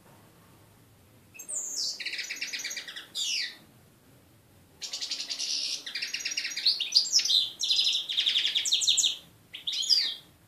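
European goldfinch singing: a high twittering phrase about a second and a half in, then after a short pause a longer run of rapid trills and chirps, ending with a few short notes.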